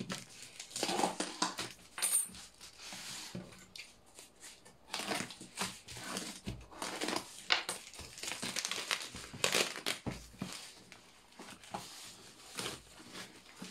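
Parcel packaging being unwrapped by hand: wrapping crinkling and rustling in irregular bursts, with some tearing.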